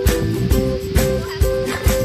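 Background music with a steady beat, about two beats a second, and plucked guitar.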